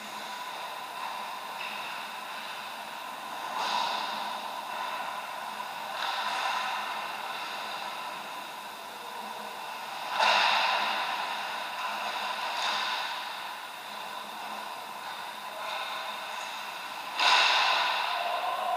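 Ice-rink sound during a hockey game: a steady hum with several sharp swishes of skate blades scraping the ice. The loudest come about ten seconds in and near the end.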